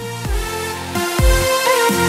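Electronic background music with a steady kick-drum beat and held synth notes.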